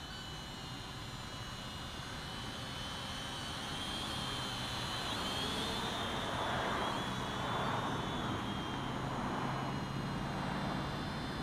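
Eachine E58 foldable pocket quadcopter in flight: a high, wavering whine of its small motors and propellers, with a rushing noise that grows louder past the middle.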